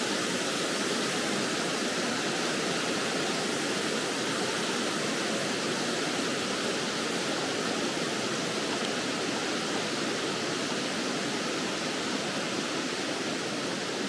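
Rushing water of a mountain stream, a steady even hiss that does not change.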